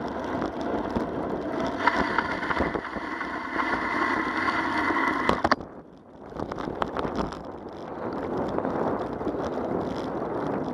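Wind rushing over the camera microphone with the rumble of bicycle tyres on a rough asphalt path. About five and a half seconds in there is a sharp click and the noise falls away for about a second as the bike leans through a curve, then builds again.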